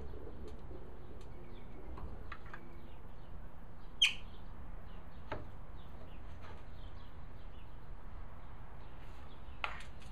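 Birds chirping in short calls over a steady low background hum, with one sharp click about four seconds in and a lighter click near the end.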